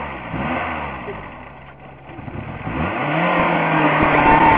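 Car engine revving: its pitch falls away in the first second, dies down, then rises steeply about three seconds in and holds high and loud.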